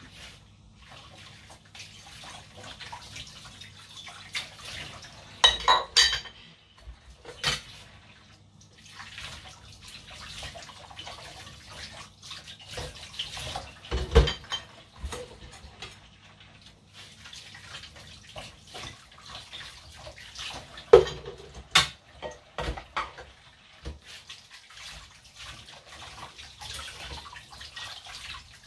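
Dishes and cutlery being washed by hand in a kitchen sink: crockery and utensils clinking and knocking against each other, with water splashing between. Several sharp clinks stand out, the loudest about two-thirds of the way through.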